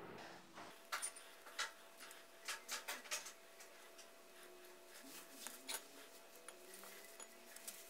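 Faint clicks and light scrapes of a small kitchen knife peeling the skin off a mango half and cutting into the flesh. They come in small clusters: about a second in, around three seconds, and again near six seconds.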